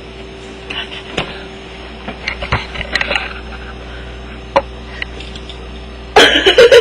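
Steady low hum with scattered light clicks and rustles, then a sudden loud burst of noise about six seconds in.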